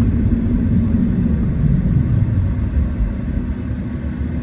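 Steady low road and tyre rumble heard inside the cabin of a moving Tesla electric car, with a faint steady hum underneath.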